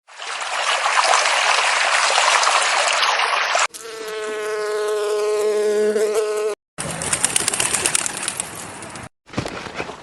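A run of short insect-sound clips joined by abrupt cuts: a steady hissing buzz for nearly four seconds, then a steady humming drone like a flying insect's wings for about three seconds, then a rougher crackling stretch.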